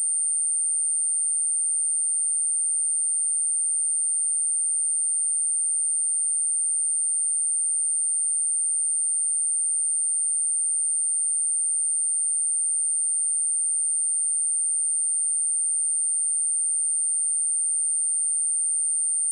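Pure 8921 Hz sine-wave test tone, a single steady high-pitched whistle held without a break.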